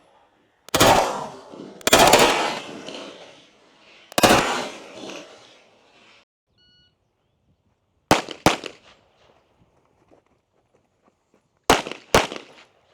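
Pistol shots at an outdoor range. Three loud shots with long echoing tails come in the first few seconds. After a short electronic shot-timer beep, two quick double shots follow, about three seconds apart.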